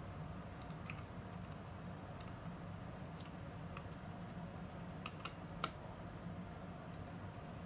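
Scattered small clicks and taps of hands handling the parts of a mini PC while it is opened or fitted, one sharper click about five and a half seconds in, over a steady low hum.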